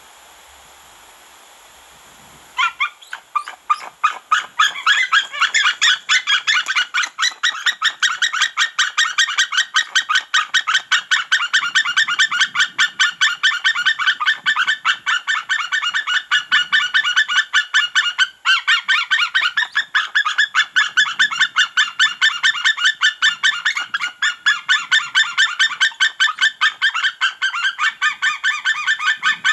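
A pair of white-tailed eagles calling loudly on the nest while on alert. A fast series of calls, several a second, starts about two and a half seconds in and thickens as the second bird joins, broken only once briefly.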